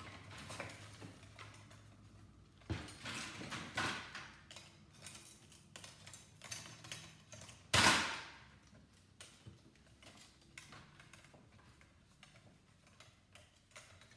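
Scattered metallic clanks, clicks and rattles of a dehumidifier's sheet-metal parts and fan-motor mount being pulled and unscrewed by hand. There is a burst of clattering about three seconds in and one loud clank just before the middle.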